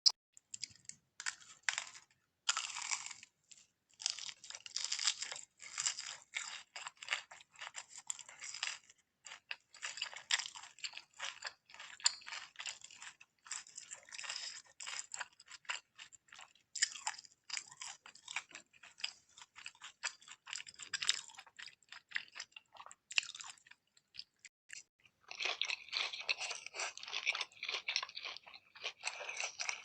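Close-miked eating sounds: chewing with quick, crisp crackling crunches and brief pauses. About 25 seconds in the sound becomes denser and fuller.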